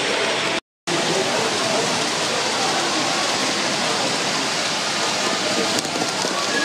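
Steady hall ambience at a model railway exhibition: an even wash of noise with indistinct visitor chatter, cut off for a moment about two-thirds of a second in where two clips are joined.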